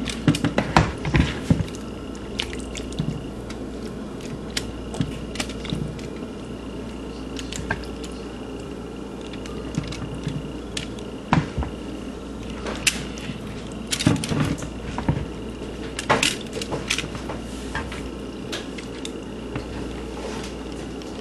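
Wet squishing with scattered clicks and taps as hands press marinated whole tilapia and sliced peppers and onions into a foil-lined baking pan, over a steady low background hum.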